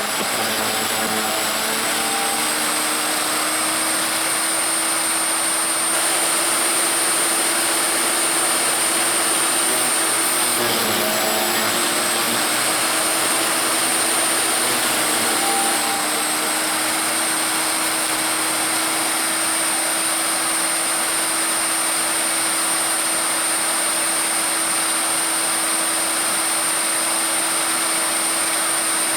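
WEN electric wood chipper running steadily with a high motor whine. The pitch sags briefly at the start and again about ten seconds in, as if the motor is taking load.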